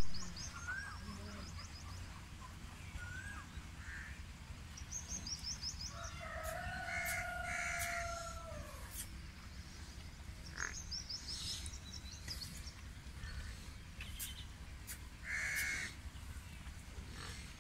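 An animal's long drawn-out call about six seconds in, with small birds chirping now and then and a steady low hum underneath.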